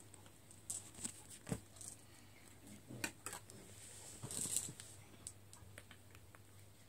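Faint scattered taps and rustles of clear plastic tubing being handled on bedding, with a steady low hum underneath.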